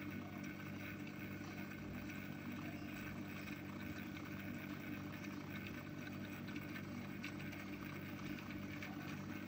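Small electric motor of a rotating display turntable running with a steady hum.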